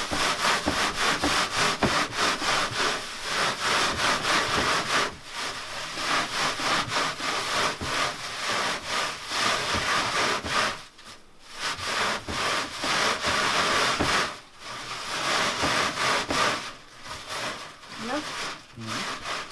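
Dried nettles rubbed by gloved hands over a wire mesh screen of about 7–8 mm squares: a continuous scratchy rustle of quick strokes as the brittle leaves are shredded through the mesh and the stems are held back. The rubbing breaks off briefly about five, eleven and fourteen seconds in.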